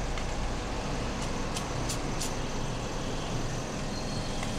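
Steady low rumble and hiss of background noise, with four light taps about a second in as fingers type on a smartphone's on-screen keyboard.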